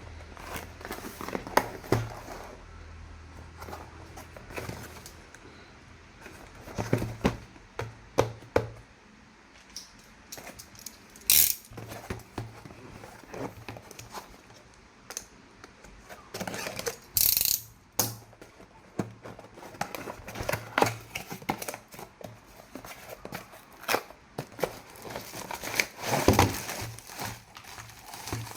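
Handling sounds of unboxing plastic toys: packaging crinkling and tearing, with many irregular clicks and knocks of plastic parts being handled and set down.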